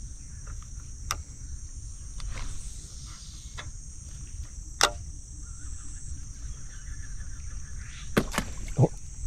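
Steady high-pitched insect chorus, with a few sharp clicks and knocks, the loudest about five seconds in and a cluster near the end.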